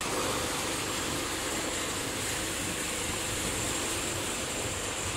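Turbulent water rushing and churning white in an open concrete channel of a water treatment works, a steady unbroken rush.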